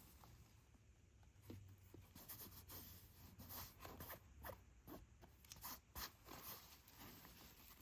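Faint rustling and scattered small clicks of packaging and a handbag being handled while it is unboxed.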